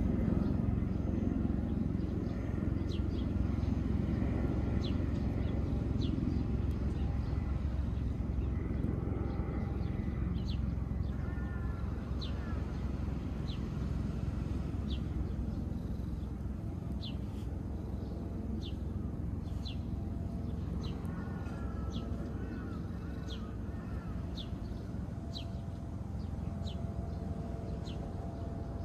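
Outdoor ambience under a steady low rumble: a small bird repeats a short high chirp about every second or two, and crows caw a few times, around the middle and again later.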